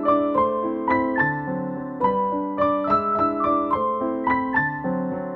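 Background music: solo piano playing a gentle melody in a steady run of notes, a few each second.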